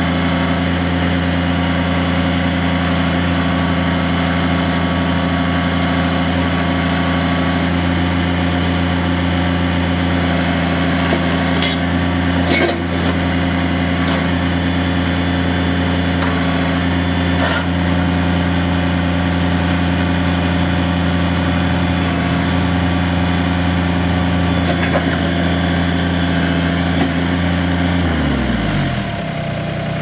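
Kubota BX24's small three-cylinder diesel engine running steadily at a constant speed, then shut off near the end, its pitch falling quickly as it winds down to a stop.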